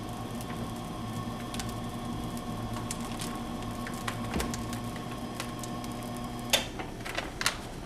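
USI CSL 2700 roll laminator's drive motor running forward with a steady hum while the rollers feed the film through, with faint light ticks of paper and film. The hum cuts off with a click about six and a half seconds in, followed by a few small clicks.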